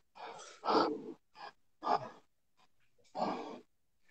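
A person breathing heavily, about five audible breaths, gasps and sighs, winded after an intense scene.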